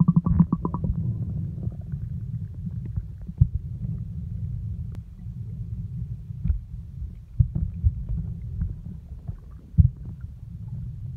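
Muffled underwater sound picked up by a camera in a waterproof housing: a steady low rumble of moving water, with scattered knocks and clicks and a quick run of clicks at the start.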